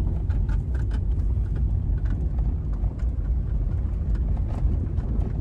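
Car driving along an unpaved dirt track, heard from inside the cabin: a steady low rumble of tyres and engine, with frequent small knocks and rattles from the bumps.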